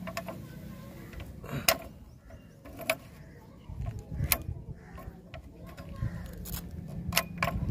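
Steel coil spring clinking against a steel post and base plate as it is worked down over the post of a batting drive stand: a handful of sharp, separate metallic clicks.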